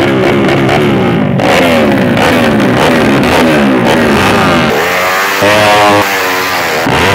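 Drag-racing motorcycle engines revving hard again and again, each rev a quick rising whine, with a deeper fall-and-rise sweep near the end, over rock music with guitar.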